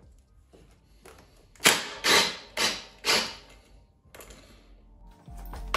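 Ratchet wrench clicking in four quick strokes, about two a second, as the lower rear shock bolt is loosened. Background music comes in near the end.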